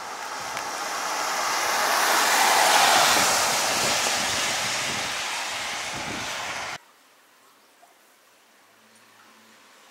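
A vehicle passing on a wet road: tyre hiss swells to a peak about three seconds in, then fades. It cuts off suddenly about two-thirds of the way through, leaving only faint background hiss.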